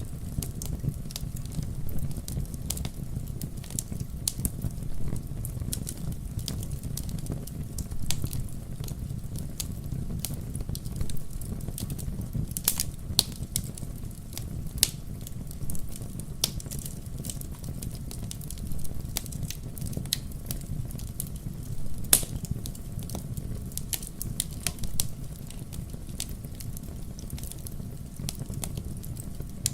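Wood logs burning in a fireplace: frequent, irregular sharp crackles and pops over a steady low rumble of the flames, the loudest pop about three-quarters of the way through.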